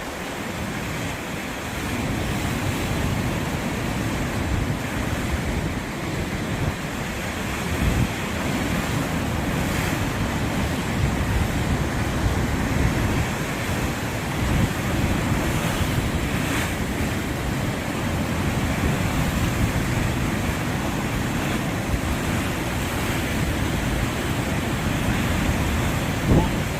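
Sea waves washing in continuously and swelling gently, with wind buffeting the microphone as a heavy low rumble.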